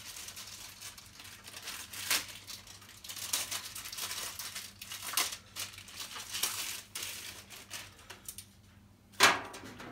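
Plastic packaging crinkling and rustling in irregular bursts as the tool chest's drawer dividers are unwrapped, with one sharp knock about nine seconds in.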